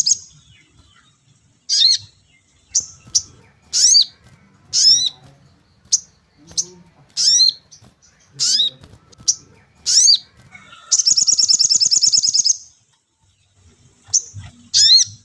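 A sogon songbird calling: a series of sharp, high chirps that sweep down in pitch, one every half second to a second, broken by a long, rapid trill near two-thirds of the way through.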